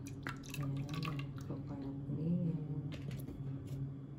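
Coconut milk pouring from a carton into a ceramic bowl, a thin stream splashing and dripping into the milk already there.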